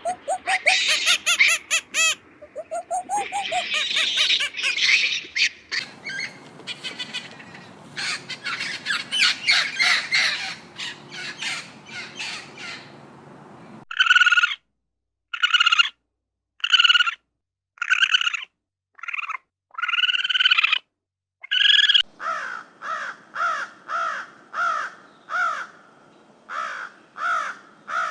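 Birds calling with loud squawking calls: first a busy mix, then single calls separated by silent gaps, then a steady series of repeated calls, close to two a second.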